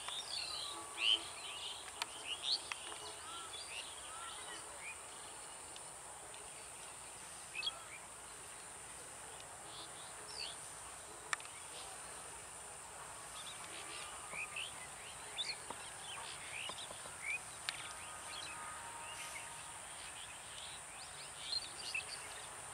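Small birds chirping and calling on and off, over a faint steady high-pitched hiss, with a few sharp clicks.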